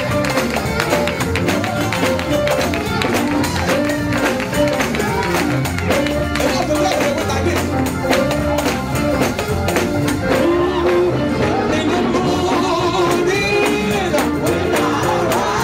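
Live Pentecostal gospel music with no lead vocal: a fast, steady percussive beat with tambourine, under a melody line stepping between a few notes.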